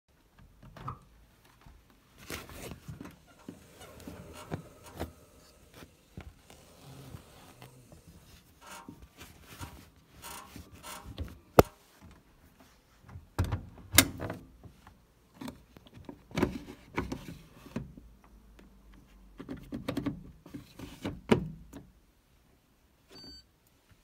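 Laundry rustling and a front-loading washing machine door being handled, with several sharp clicks and knocks. A short electronic beep from the machine comes near the end.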